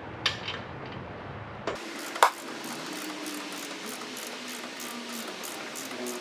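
A few sharp metallic clicks and clanks of a wrench on the motorcycle's rear shock mount, the loudest about two seconds in. Then faint background music with a light, even tick of about three a second.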